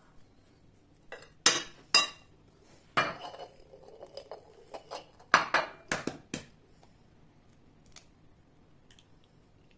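A metal spoon clinking and scraping against a porcelain dish while stirring a grated vegetable mixture, about four sharp clinks in the first few seconds. A second group of four sharp dishware clinks follows a couple of seconds later.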